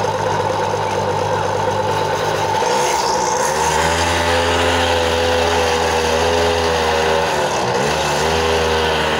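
Small engine of a motorized tricycle running at idle, then revved up as the rider pulls away and held at a steady higher note. It eases off briefly about seven and a half seconds in and picks up again.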